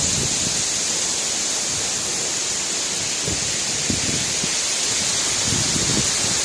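Waterfall: a steady hiss of falling water, with a few brief low rumbles a few seconds in.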